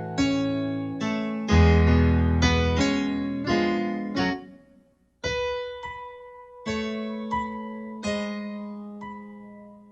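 Slow solo piano music: chords struck and left to ring out and fade, with a brief silent break a little before halfway through.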